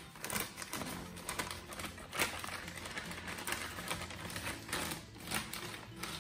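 Plastic zip bag crinkling as it is shaken, with a rapid irregular patter of the last grains of paydirt dropping into a plastic gold pan.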